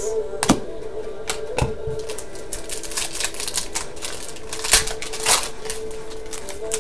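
Stiff chromium trading cards being flicked through one by one and dropped onto a stack, a run of quick, sharp clicks and snaps at an uneven pace. The loudest snaps come a little before and after five seconds in, over a steady low tone.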